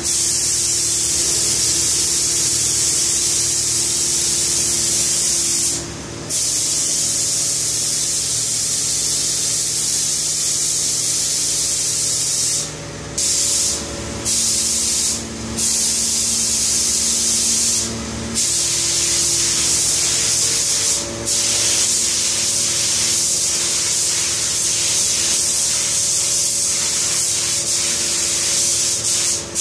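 A compressed-air spray gun with a gravity-feed cup sprays a top coat of paint in a steady high hiss. It cuts out briefly about six times as the trigger is released between passes. A steady low hum runs underneath.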